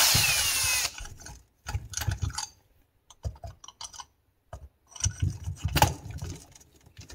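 Power drill with a long T25 bit running briefly to back out a cylinder screw on a Stihl MS260 chainsaw, its motor whine shifting in pitch, followed by scattered clicks and knocks as the bit is set on the next screw, and more drill noise about five seconds in.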